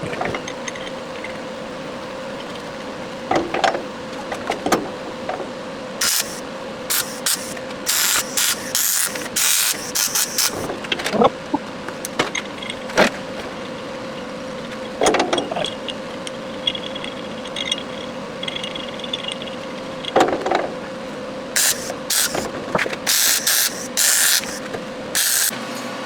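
Gas-shielded MIG welding in short bursts: the crackling arc starts and stops repeatedly, in two clusters, over a steady hum, with a few clunks between the welds.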